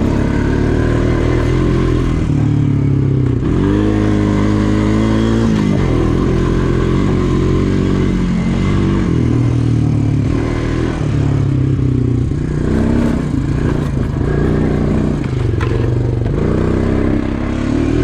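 ATV engine running under load on a trail, its pitch rising and falling over and over as the throttle is worked, with one clear rev up and back down about four to six seconds in.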